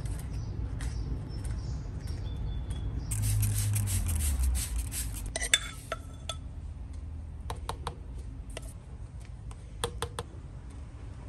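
A few seconds of hiss from a hand spray bottle misting, then a sharp clink and several lighter clinks and scrapes of a metal spoon against a ceramic mug as it scoops coconut coir into a small plastic pot.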